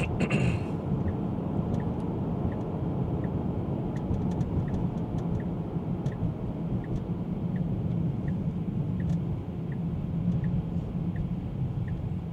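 Steady road and tyre rumble inside the cabin of a moving 2024 Tesla Model 3, an electric car with no engine note. Over it a turn signal ticks evenly, about three ticks every two seconds.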